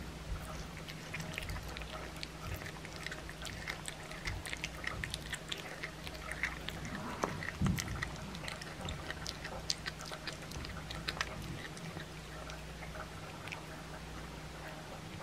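A cat chewing a raw chicken back, with wet smacking and many quick sharp crunches of bone, densest around the middle, over a steady low hum.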